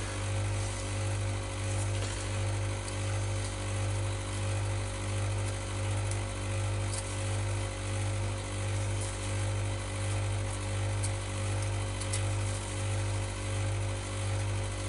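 A steady low machine hum that wavers in level about twice a second.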